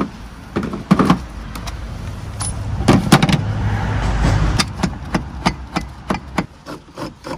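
Metal tools and shock-absorber parts being handled: irregular clanks and knocks with a low rumble about halfway through, then a steady run of sharp clicks at about three a second.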